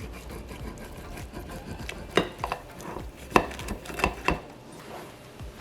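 Kitchen utensil cutting into a hot egg tortilla bake and knocking against the baking dish: a handful of sharp clicks and light scrapes from about two seconds in.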